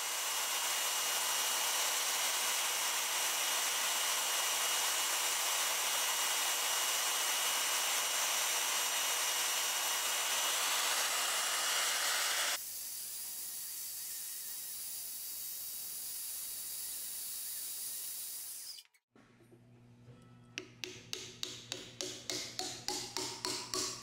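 Steady abrasive rasping as a carved wooden handle clamped in a vise is shaped, dropping quieter about twelve and a half seconds in. In the last few seconds a run of hammer taps comes faster and faster, rising in pitch, as a wooden wedge is driven into the top of the handle through the forged steel head.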